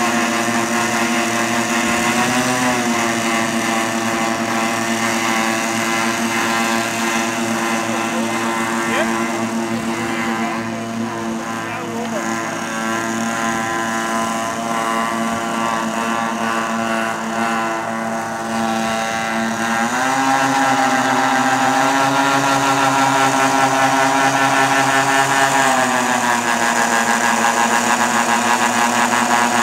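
Engines of a radio-controlled scale Lockheed Super Constellation model running steadily on the ground, the multi-engine drone revved up about twenty seconds in and throttled back down near the end as the model taxis.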